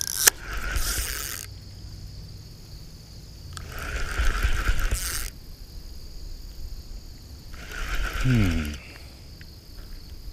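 Spinning reel whirring in three bursts of about a second each as a hooked fish is played in, with crickets chirping steadily.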